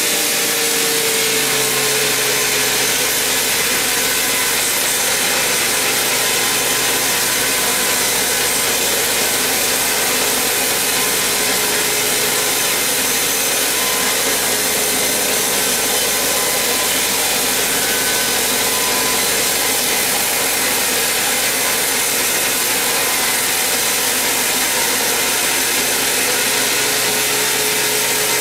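Large band saw ripping lengthwise through a huge mahogany log: a steady, loud sawing noise with the machine's hum underneath.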